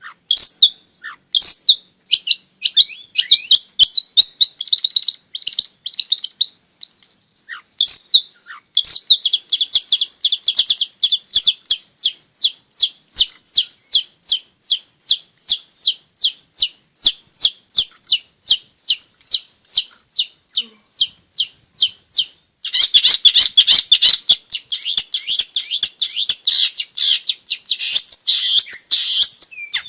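Long-tailed shrike singing: scattered sharp calls and short phrases, then from about nine seconds a long, even run of repeated sharp notes, two or three a second. Near the end this breaks into fast, continuous chattering.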